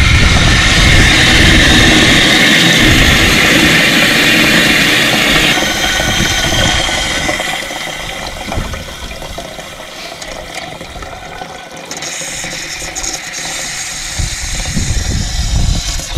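Water rushing through the float valve of a Ritchie automatic waterer into its bowl as it fills: a loud, steady hiss that eases off about six seconds in and dies down to a much quieter flow as the bowl fills.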